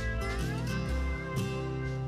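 Background music: guitar tune with sustained notes and some notes sliding in pitch.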